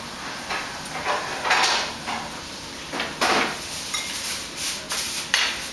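Utensils scraping and clinking against tableware as a person eats at a table: a string of short scrapes and one brief ringing clink about four seconds in.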